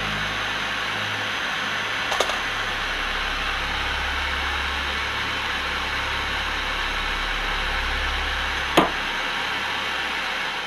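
Propane torch flame burning with a steady hiss, dying away right at the end as the valve is closed. Two sharp clicks, about two seconds in and near the end; the second is the loudest moment.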